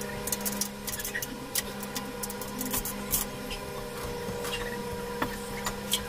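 Scattered sharp clicks and rubbing noises, densest in the first three seconds and sparser after, over a steady hum.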